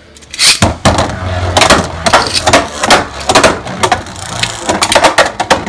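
Beyblade ripcord launchers ratcheting as the spinning tops are launched, then sharp repeated clacks of the tops striking each other and the plastic stadium walls, over a steady low hum.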